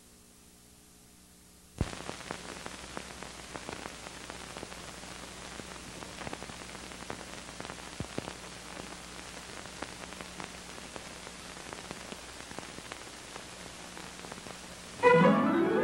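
Hiss and crackle of an old film soundtrack with scattered clicks, starting suddenly with a pop about two seconds in. Music begins loudly near the end.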